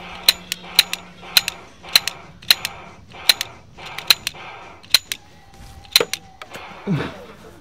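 A toy revolver's hammer and trigger clicking as it is dry-fired over and over without firing. The sharp clicks come about two a second and space out toward the end.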